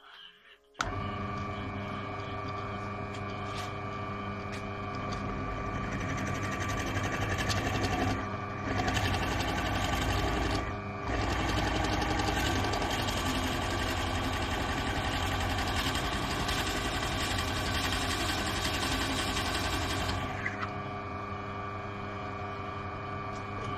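Peugeot pillar drill switched on about a second in, its motor running with a steady hum and tone while a large Forstner bit bores into a block of wood. The cutting noise swells through the middle with two short breaks, then drops away near the end, leaving the motor running.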